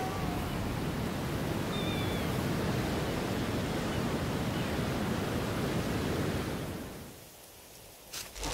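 Steady rush of wind and ocean surf that fades down about seven seconds in, followed by a short sharp click near the end.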